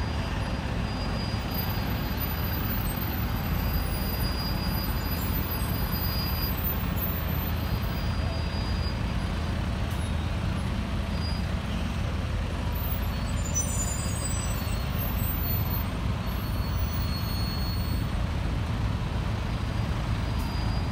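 Diesel engine of a large fire tanker truck running as it drives slowly past, a steady low rumble.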